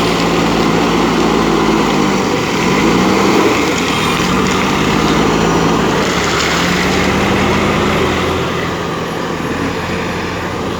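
JCB 3DX backhoe loader's diesel engine running under load, its pitch dipping and climbing back several times as the machine works.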